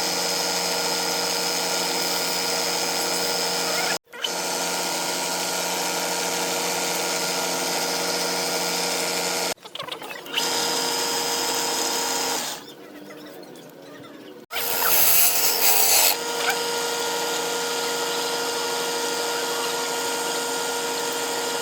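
Electric wood lathe running with a steady motor whine, in short clips joined by abrupt cuts. Partway through it drops quieter for a couple of seconds, then a louder rough burst lasting about a second and a half.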